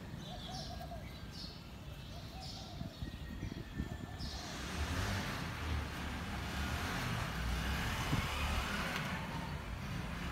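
A vehicle passing on a wet street: tyre hiss swells from about four seconds in and stays up over a low rumble. Before it, a bird gives short calls about once a second.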